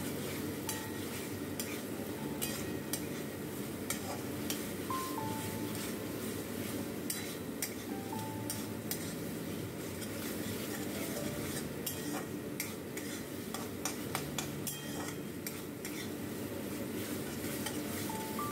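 A metal spatula stirring and scraping masala around a kadai, with frequent irregular clicks where it knocks the pan, over a steady sizzle of frying.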